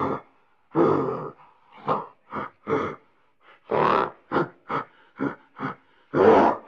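An animal giving a rapid series of about a dozen short calls with irregular gaps, a few of them longer and louder than the rest.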